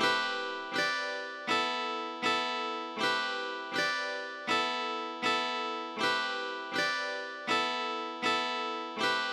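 Background music: a guitar chord strummed evenly, about once every three-quarters of a second, each strum ringing and fading before the next.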